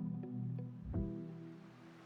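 Soft instrumental background music with plucked notes. A last note sounds about a second in, then the music fades away.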